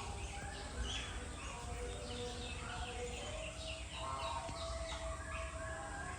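Many short, high, falling chirps and squeaks from animals, overlapping, over a low steady rumble.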